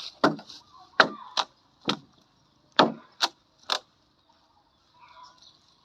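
Seven sharp knocks on wood, spaced irregularly over about three and a half seconds, each a short solid hit.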